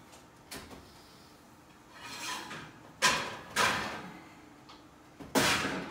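Oven door being opened and the hot baking stone pulled off the oven rack: a swell of scraping noise, then sharp clatters about three seconds in, with the loudest clatter near the end.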